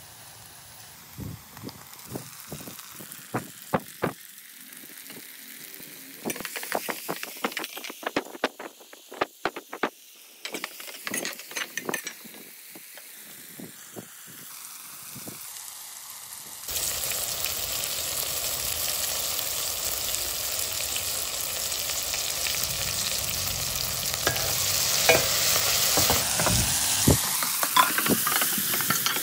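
Onions, then tomatoes, green chillies and curry leaves, sizzling in hot oil in a metal pot, with a ladle scraping and clicking against the pot as they are stirred. Just over halfway through, the sizzle jumps suddenly to a loud steady hiss.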